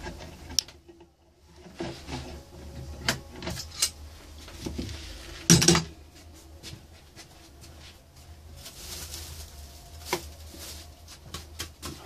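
Wooden blocks being handled on a workbench: scattered knocks and clatters of wood on wood, the loudest about five and a half seconds in.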